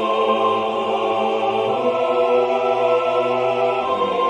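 Four-part choir singing sustained forte chords over a repeated 'ah' figure in the second voice. The chord changes about two seconds in and again near the end.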